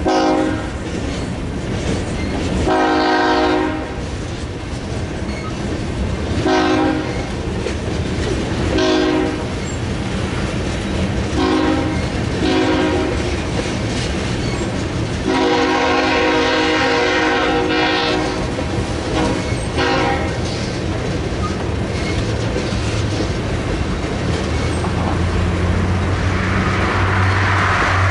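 BNSF mixed freight train, its cars rolling slowly past with steady rumble and wheel clatter. The locomotive horn sounds in about eight blasts of varying length, the longest near the middle. A car drives past near the end.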